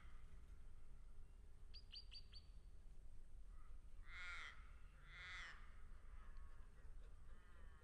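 Birds calling over a low rumble: a quick run of four short high chirps about two seconds in, two loud drawn-out calls about four and five seconds in, and fainter calls near the end.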